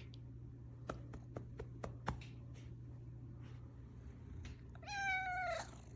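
A ragdoll cat gives a single drawn-out meow of about a second near the end, after a few light clicks in the first couple of seconds.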